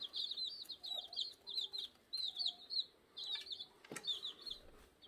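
Young chicks peeping over and over in short, high-pitched chirps, several a second, with a few soft low clucks from the mother hen. A single light knock about four seconds in.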